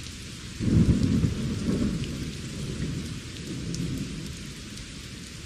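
Steady rain, with a rumble of thunder that breaks in about half a second in and slowly dies away over the next few seconds.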